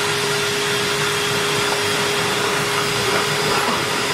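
Vacuum cleaner motor running steadily: an even rushing hiss with a constant whine.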